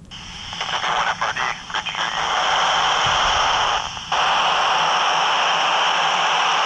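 FM static hissing from a Yaesu FT3DR handheld ham transceiver's speaker while it listens on the International Space Station's 2-metre downlink, with no clear voice on the channel. The hiss swells over the first couple of seconds and cuts out briefly about four seconds in.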